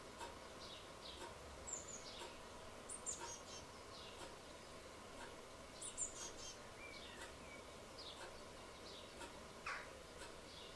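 Blue tits calling at a nest box: many short, thin, high chirps that fall in pitch, coming irregularly, the loudest about six seconds in, over a faint steady background hum.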